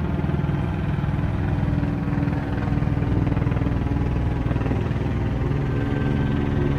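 A steady low engine drone with a fast, even pulse.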